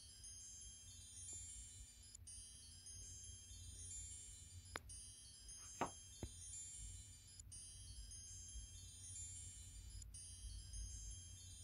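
Soft, continuous twinkling chime tones, high and overlapping, like a wind chime. A few short taps sound around the middle, one of them louder.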